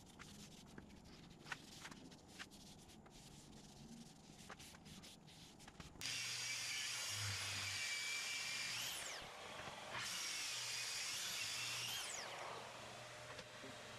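A few light clicks and taps, then about six seconds in a power tool starts working wood: a loud, hissy run of about six seconds with a brief dip in the middle, before dropping back.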